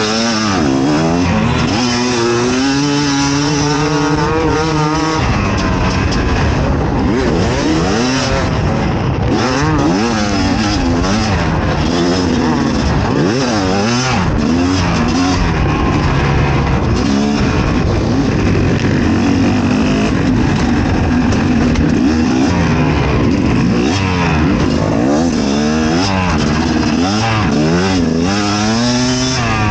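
Fantic XE 300 two-stroke enduro motorcycle engine being ridden hard off-road, its revs rising and falling continuously with throttle changes and gear shifts.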